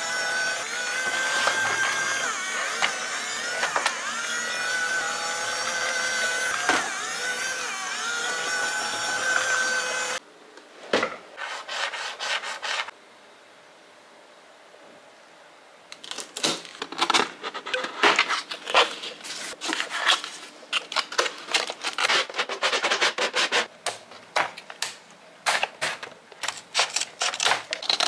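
Battery-powered light-up Spider-Man toy car playing its electronic tune, which cuts off suddenly about ten seconds in. After a short quiet gap comes a dense, irregular run of clicks and scraping rubs as scissors cut packaging tape and plastic kit parts are handled.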